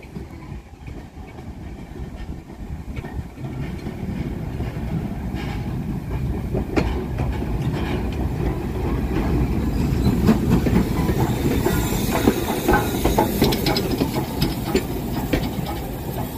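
LMS Stanier 8F 2-8-0 steam locomotive and its coaches running into a station, a low rumble growing louder as the train draws near and passes close by, with wheels clicking over the rail joints. A hiss joins in over the last few seconds.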